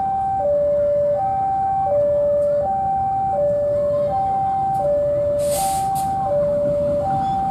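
Two-tone electronic railway level-crossing alarm, a steady high-low signal switching pitch about every 0.7 s, over the low running of an approaching CC 203 diesel-electric locomotive that grows louder near the end. A brief hiss comes about five and a half seconds in.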